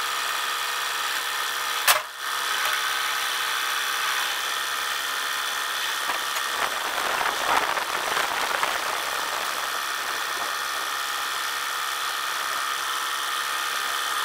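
Case IH loader tractor's engine running steadily with a high whine. There is a sharp clank about two seconds in, and a rougher, louder rush from about six to nine seconds in as the loader lifts the fuel tank on its chains.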